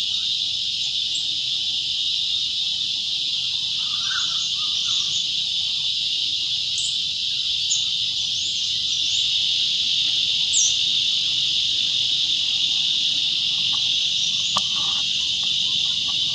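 A steady, high insect drone from forest insects runs without a break. A few short, high bird chirps sound over it, the clearest about ten seconds in.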